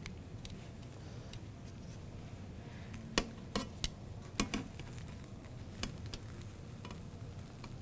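Metal kitchen tongs clicking and tapping against skillets while quesadillas are folded and turned: a few scattered light clicks, most of them in the middle of the stretch, over a low room hum.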